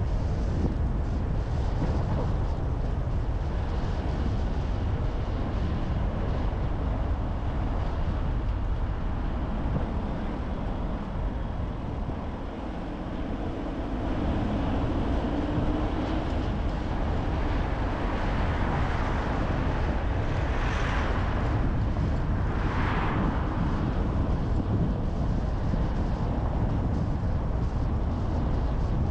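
Car driving: a steady low rumble of road and engine noise. It eases for a moment about twelve seconds in, then builds again with a faint rising engine note. Two brief swells of hiss come a couple of seconds apart later on.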